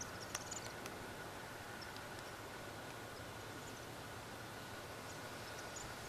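Faint outdoor field-recording ambience: a steady hiss with a steady high whine underneath, a sharp tick about a third of a second in, and a few brief, faint high chirps shortly after it, around two seconds in and again near the end.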